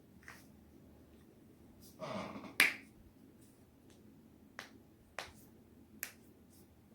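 Spinal joints cracking under a forced twist. A short rustle of movement leads to one loud crack about two and a half seconds in, and four fainter pops are scattered around it.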